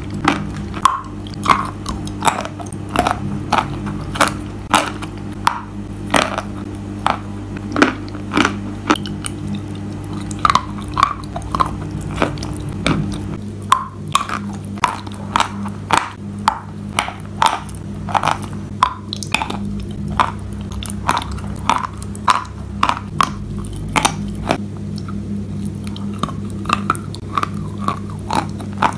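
Biting and chewing a bar of dry sawn Belgorod chalk coated in brown clay paste: a long run of sharp, dry crunches, about one or two a second, over a steady low hum.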